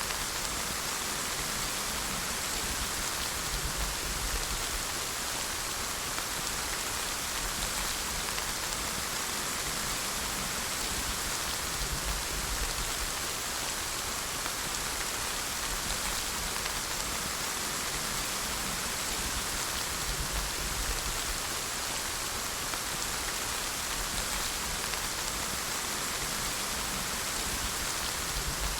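Steady rain falling on a surface, an even hiss that does not let up, with faint low rumbles now and then underneath.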